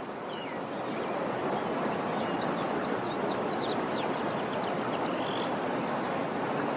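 Outdoor background ambience: a steady, even hiss with birds chirping briefly now and then.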